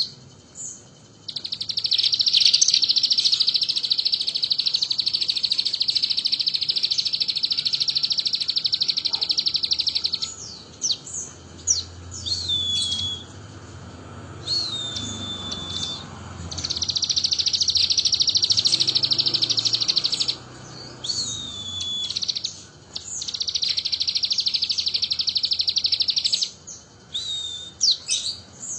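A sogon songbird singing, mimicking the bar-winged prinia's (ciblek's) song: three long, very rapid high trills of several seconds each, the first the longest, with short whistled notes that slide downward between them.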